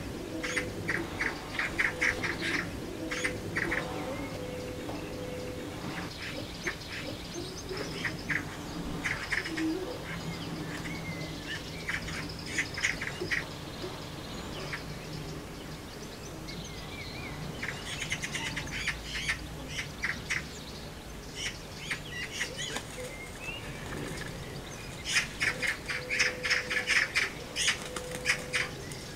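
Eurasian magpies giving their harsh, rattling chatter in several rapid runs, the loudest near the end: the aggressive chatter of magpies squabbling at their nest.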